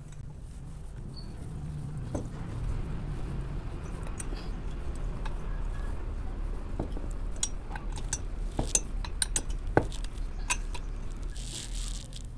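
Steel socket spanner clinking against the cylinder head bolts of a TVS XL Super moped engine as they are tightened in a cross pattern, with scattered sharp metallic clicks that come thickest in the second half.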